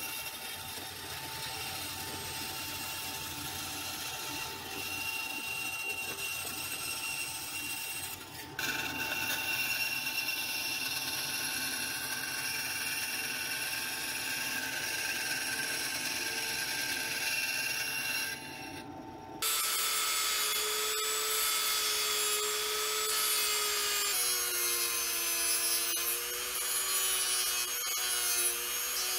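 A band saw runs steadily, cutting a thin Lexan polycarbonate sheet. About two-thirds of the way in it gives way to the whine of a handheld rotary tool sanding the edge of the cut Lexan piece with a small sanding drum; its pitch drops a few seconds later and then wavers.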